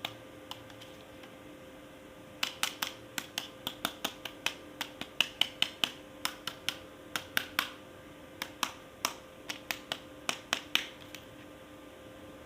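Sharp clicks and taps of hard plastic being handled, a couple at the start, then after about two seconds an uneven run of two or three a second that stops about a second before the end.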